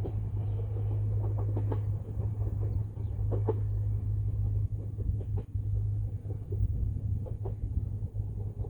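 Bessho Line 1000-series electric train moving away after passing: a steady low rumble with scattered sharp clicks from the wheels on the rails.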